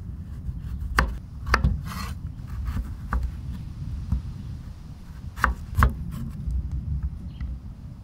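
Chef's knife cutting carrots into julienne sticks on a wooden chopping board: the blade rasps through the carrot and knocks sharply on the wood several times, loudest about a second in and again just after five seconds.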